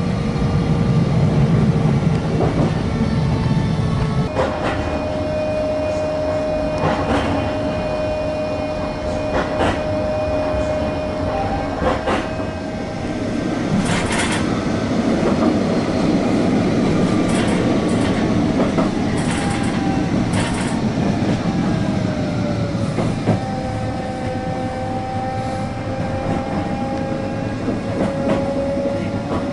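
Bombardier Flexity 2 tram running along its track, heard from inside the car: a continuous rumble of wheels on rail under a steady electric whine. The whine drops in pitch about two-thirds of the way through, then climbs slowly again as the tram changes speed, and there are repeated short clicks over the rails.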